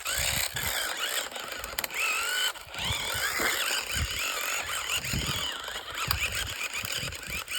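Small toy RC car driving, its motor and gears giving a wavering, squealing whine over irregular low knocks. The owner puts this 'engine noise' down to a cog that came off in the gearbox, and says it does not affect how the car runs.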